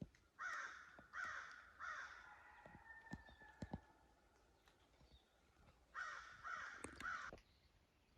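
A crow cawing: three harsh caws in quick succession, then another three about six seconds in.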